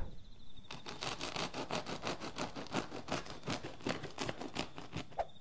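Blade sawing back and forth through a snare-trap rope in quick, even rasping strokes, about six a second, stopping shortly before the end as the rope is cut through.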